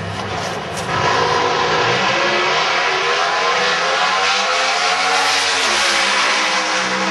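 Drag racing engines at full throttle down the strip. A loud, steady engine noise starts about a second in, and its pitch sweeps and then falls as the vehicles pass.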